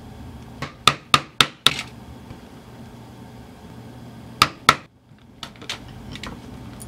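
Poly mallet striking a steel stitching chisel into leather: five sharp blows at about four a second, a pause, two more blows, then a few lighter taps.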